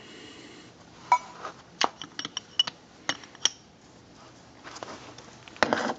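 Metal clinks and knocks as a steel hydraulic tube is fitted into a hand pipe bender: a string of sharp taps, some briefly ringing, between about one and three and a half seconds in, then a short rushing noise near the end.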